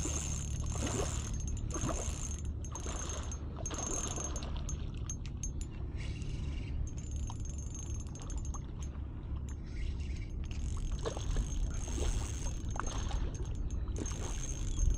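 Steady wind rumbling on the microphone, with a few light clicks and knocks in the first few seconds and again near the end. A faint, thin high whine comes and goes.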